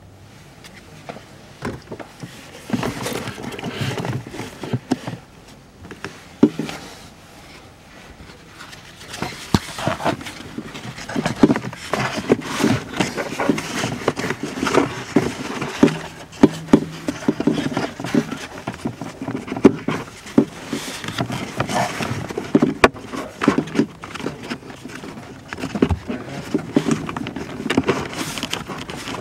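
A new pleated cabin air filter is worked by hand into its plastic housing. There is irregular rustling and scraping of the paper pleats against plastic, broken by many sharp clicks and knocks. It starts a couple of seconds in and gets busier from about nine seconds on.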